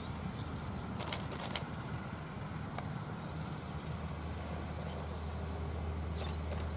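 Queensland Railways 2000 class diesel rail motors approaching at a distance: a steady low engine drone, with a few faint clicks scattered through it.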